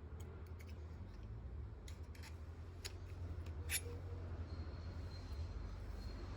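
Light clicks and scrapes of a tool prying a stuck wood plug out of a hole saw, with one sharper click a little past the middle, over a low steady hum.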